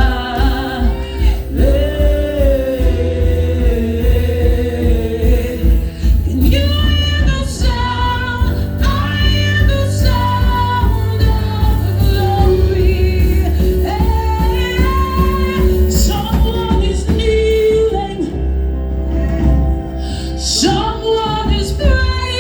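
Gospel music: a band playing with a steady bass line while singers carry a long sustained melody.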